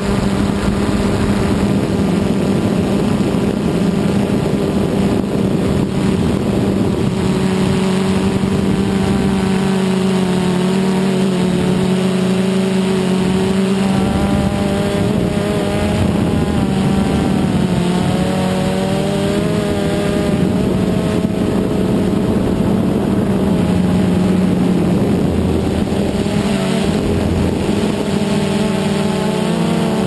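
DJI Phantom 2 quadcopter's motors and propellers whirring, heard from the camera on board: a loud, steady buzzing hum whose pitch wavers up and down from about eight seconds in as the motor speeds change.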